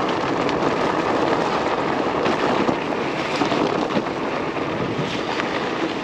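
Fat tires of an electric bike rolling fast over a gravel road: a steady rushing crunch dotted with small stone clicks, mixed with wind buffeting the microphone.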